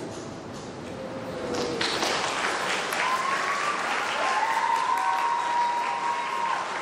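Audience applauding, building up over the first two seconds after the scene's final line, with a long drawn-out cheer over the clapping from about three seconds in.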